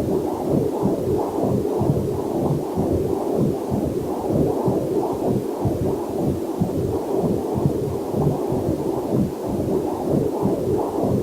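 Heartbeat picked up by a fetal Doppler monitor: a quick, steady train of whooshing pulses, a little over two a second, with a faint waterfall hiss mixed in underneath.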